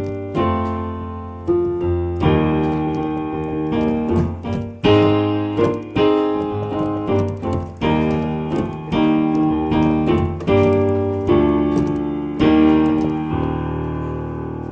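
Yamaha Clavinova CVP-79 digital piano playing its default acoustic piano voice: a passage of struck chords and melody notes, each decaying after the strike. The last chord, about 12.5 s in, is held and left to ring out.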